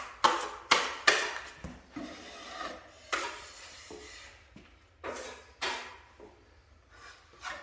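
Metal drywall tools scraping through joint compound in a series of short strokes, each starting sharply and fading quickly. Three come close together in the first second or so, then more spread out, with two stronger ones around the five-second mark.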